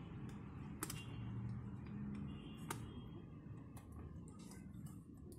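Sharp clicks of a small screwdriver and fingers on a laptop's plastic bottom panel as its screws are undone, two clearer ones about a second and three seconds in and fainter ones near the end, over a low steady hum.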